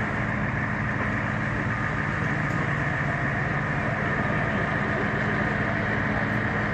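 A heavy engine running steadily, an even low drone with no knocks or crashes.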